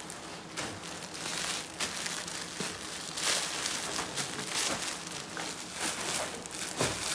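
Plastic bag crinkling and rustling in irregular bursts as a bundle of clothes is handled and unwrapped.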